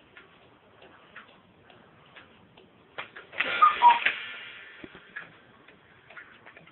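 Black Forest cuckoo clock ticking, with a clack about three seconds in and then one two-note cuckoo call, high then low. The clock is calling because its hands have been moved forward.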